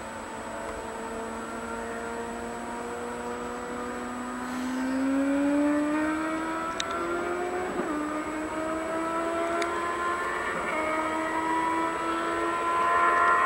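Diesel-hauled double-deck regional train approaching; its engine note rises slowly in pitch and grows louder as it nears.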